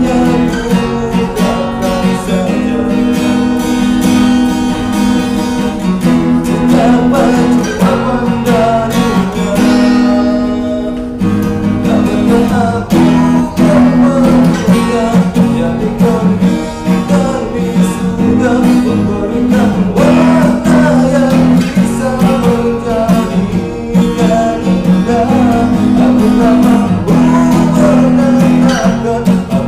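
A man singing along to a strummed acoustic guitar, with steady chords changing every second or two under a wavering sung melody.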